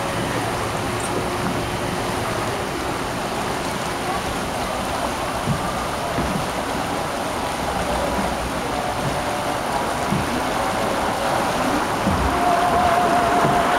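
Water rushing and splashing down a concrete log flume channel around the moving flume boat, a steady churning that gets a little louder in the last two seconds. A faint steady tone comes in near the end.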